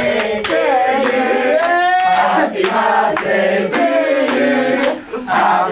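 A group of people singing a birthday song together, with hand claps running through it. The singing dips briefly about five seconds in, then picks up again.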